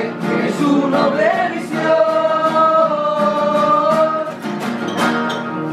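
Several voices singing together in harmony to strummed acoustic guitars. The singers hold one long note through the middle, and guitar strums follow near the end.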